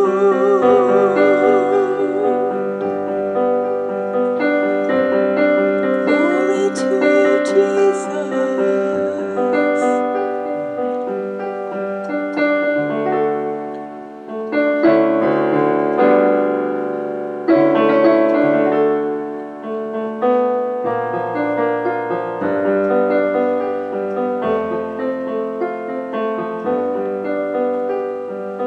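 Grand piano playing a sustained, chordal instrumental passage. A woman's held sung note with vibrato ends about two seconds in.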